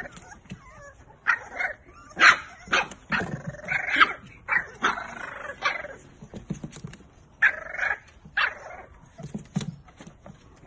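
Puppy giving an irregular run of short, high yips and barks.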